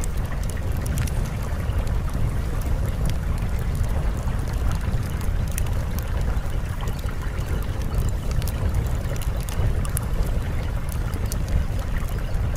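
Steady rushing noise with a deep low rumble and scattered faint crackles, like a looped water or wind background track.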